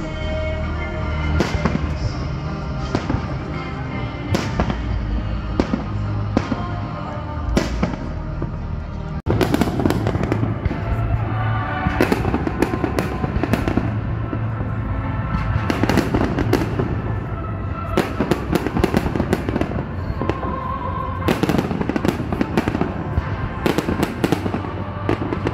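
Fireworks display: an irregular string of sharp bangs and crackles from aerial shells and fountains, growing denser about a third of the way in. Music plays underneath.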